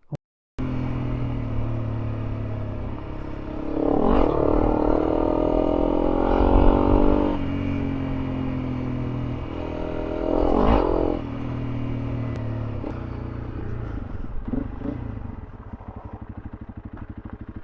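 Honda CRF300L Rally's single-cylinder four-stroke engine under way, the revs rising in two pulls about four and ten seconds in, then settling to a lower, steady beat near the end.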